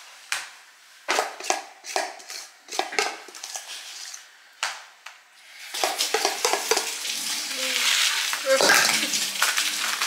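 Stainless steel mixing bowl clinked and knocked as cookie dough is scraped out of it onto a lined baking tray: a string of sharp separate taps. From about six seconds in a steady hiss sets in under the handling.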